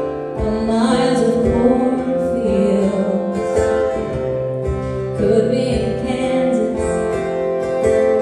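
Instrumental intro of a live country song: acoustic guitar strummed in a steady rhythm under a held melody line.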